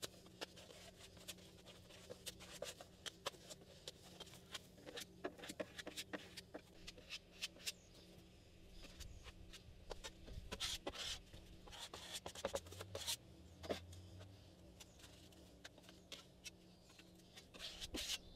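Plastic spreader mixing fairing compound on a board and spreading it onto a fiberglass transom: faint, scattered scrapes and clicks throughout.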